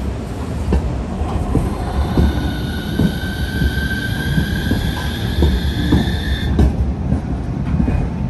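Utsunomiya Light Rail HU300-series low-floor tram passing close by: a low rumble with scattered wheel knocks, and a high whine that climbs slightly from about two seconds in and cuts off suddenly about six and a half seconds in.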